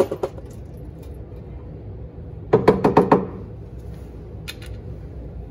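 Sharp knocks on the metal rear differential cover of a Sterling 10.5 axle as it is pried and worked loose from its stuck gasket seal: a few at the start, then a louder quick run of five or six about two and a half seconds in.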